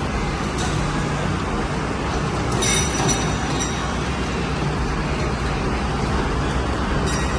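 Heavy diesel construction machine engine running steadily, with a brief high-pitched whine or squeal near the middle.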